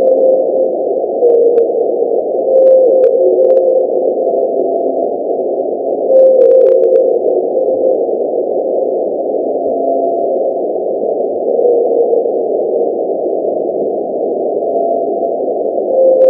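Homemade blue whale call sound effect: a continuous rushing hum with short held tones that recur every couple of seconds, and a few faint clicks about six seconds in.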